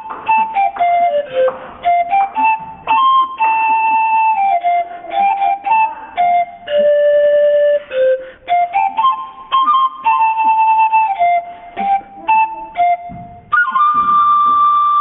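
Antara (Andean panpipe) playing a melody of short, separated notes that step up and down, ending on a long held note near the end.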